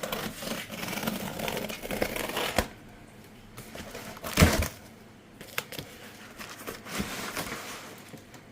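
Packaging of a boxed camping fridge being handled and pulled open: rustling and crinkling for the first two and a half seconds, then scattered clicks and a loud thump about four and a half seconds in.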